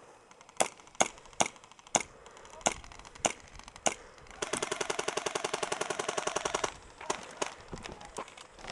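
Airsoft guns firing: seven single sharp shots over the first four seconds, then a rapid full-auto burst of a little over two seconds, then a few more scattered shots.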